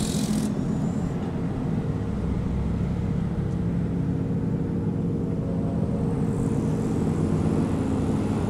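A car engine idling steadily, with a brief hiss right at the start.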